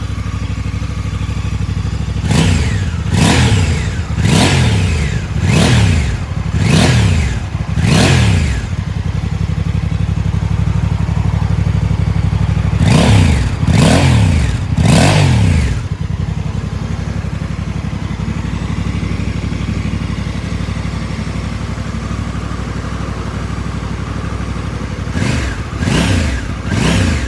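2024 Honda Africa Twin CRF1100L's 1084 cc parallel-twin engine idling and being revved with short throttle blips: six in quick succession about a second apart, back to idle, three more, a long stretch of idle, then three more near the end. It runs through the stock exhaust, which has no butterfly valve and does all the sound deadening itself.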